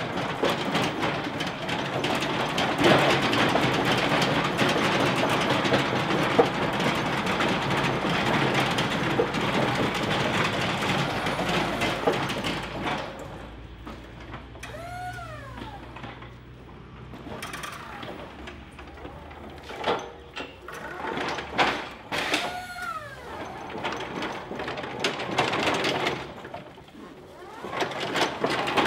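Electric pallet stacker working: a steady motor noise for about the first twelve seconds, then quieter, with a low hum and two squeaky rising-and-falling whines.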